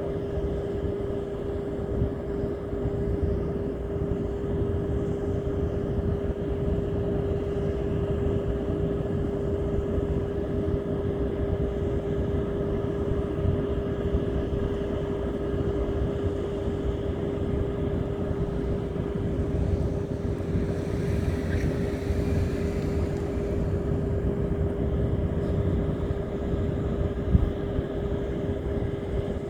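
A boat's engine running at a steady speed, a constant hum over a low rumble.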